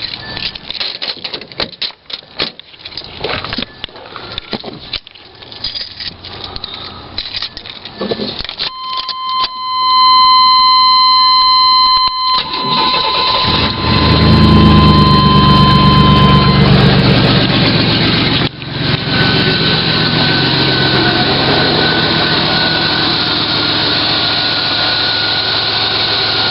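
Scattered clicks and knocks for several seconds, then a steady electronic warning tone, then the 1994 Chevy S-10 Blazer's 4.3-litre V6 cranks and starts about halfway through, running fast for a few seconds before settling into a steady idle.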